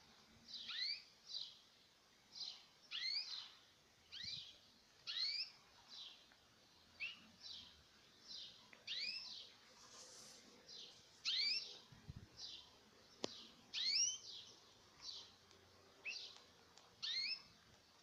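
Caged canaries giving short upward-sweeping chirp calls, about one a second and sometimes in quick pairs, with a single sharp click about 13 seconds in.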